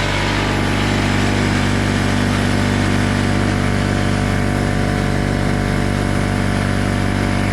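Craftsman oilless air compressor running steadily, its motor and pump building air pressure in the tank.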